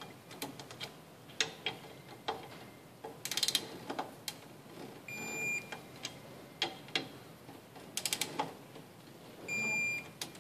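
Torque wrench ratchet clicking, singly and in quick runs, as the bolts holding an outer wheel bearing into a suspension upright are run down to 65 foot-pounds. A steady high electronic beep lasting about half a second sounds twice, about four and a half seconds apart, as the wrench signals that the set torque is reached.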